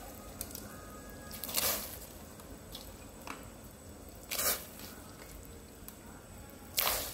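Wet food-preparation sounds: three brief squishing swishes a few seconds apart over a faint steady hiss.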